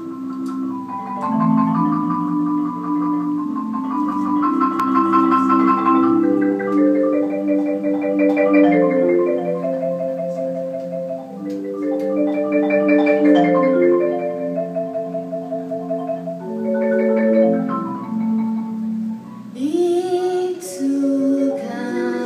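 Marimba played solo in an improvisation: mallet notes and chords in the low and middle range, many of them held as rolls of rapid repeated strokes.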